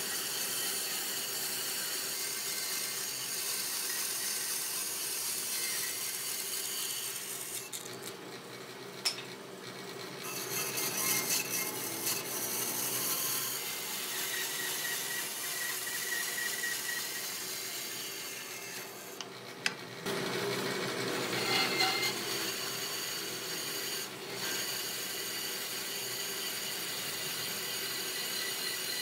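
Bandsaw blade cutting through thick hardwood blocks, a steady rasping hiss. It dips twice, with a sharp click each time.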